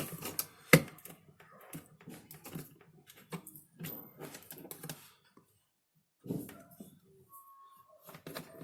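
Irregular clicks and taps of small parts and a tool being handled while wiring a jumper loop into a digital temperature controller's screw terminals, with one sharp click about a second in and a short pause past the middle.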